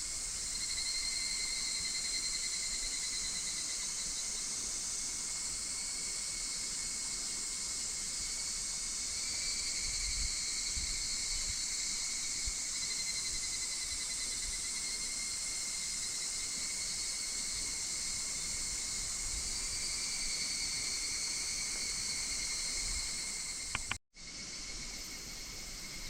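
Higurashi (evening cicadas) calling: overlapping phrases of rapid pulsed notes that swell and fade over a few seconds each, over a steady high hiss of other insects. The sound drops out for a moment near the end.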